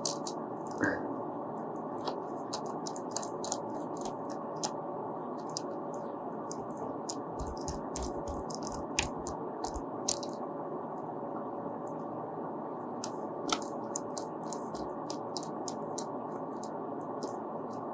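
Faint scattered clicks and scrapes of a Phillips screwdriver driving screws into the rear of a laptop's bottom cover, over a steady background hiss.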